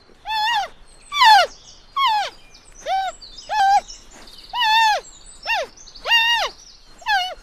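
Panda calls: a run of about nine short, high calls in quick succession, each rising and then falling in pitch.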